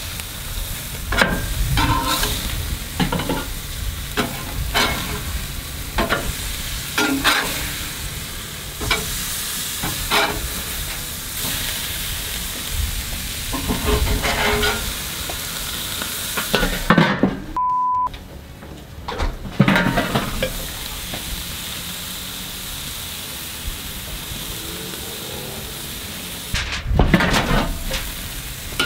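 Beef-and-pork burger patties sizzling on a hot grill grate, with short scrapes and metal clinks from a spatula as they are flipped and moved. About midway there is a brief high beep.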